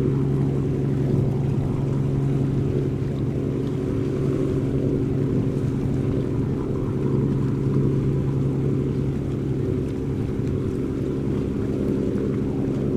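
A boat's diesel engine running steadily: a deep, even drone that holds the same pitch throughout.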